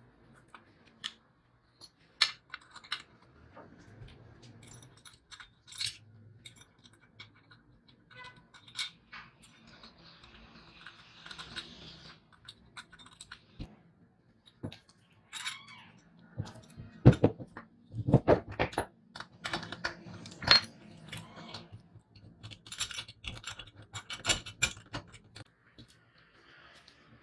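Small metal parts of a vintage balance scale clinking and tapping against its painted base as they are handled and fitted by hand. The clicks come irregularly, with a cluster of louder knocks about two-thirds of the way through and one short squeak just before them.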